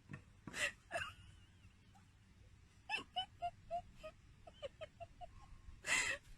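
Dog whimpering in short, squeaky notes, several in a row from about three seconds in, with a few sharp breathy huffs or snorts, the loudest near the end.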